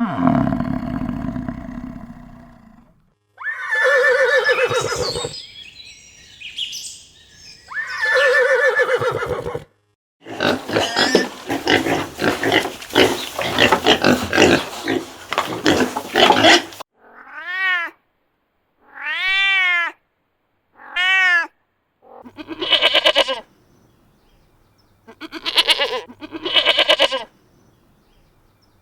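A series of different animal calls in turn: a long run of rapid, noisy calling in the middle, and three short calls that rise and fall in pitch near the end.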